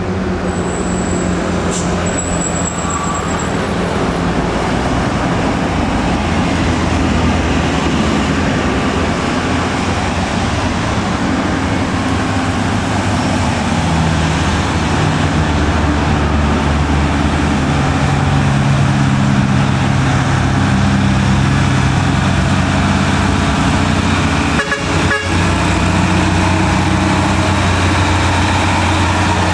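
Mitsubishi Fuso truck's diesel engine running steadily as it climbs a steep hill, growing louder as it nears, with other road traffic around it.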